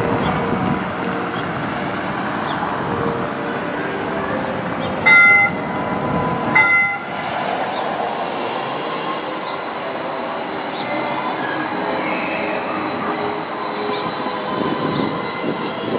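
A QLine Brookville Liberty streetcar approaches and passes among street traffic. Two short horn blasts sound, about five seconds in and again a second and a half later.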